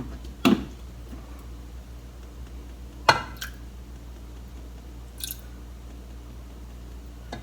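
Sparse kitchen handling sounds: a soft knock about half a second in, a sharper clank a little after three seconds followed by a lighter one, and a brief faint hiss around five seconds. A steady low hum runs underneath.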